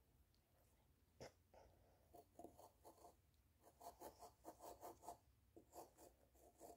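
Faint, repeated scraping strokes of a small knife sawing through a strawberry, quickening to a few strokes a second about four seconds in, with a single click about a second in.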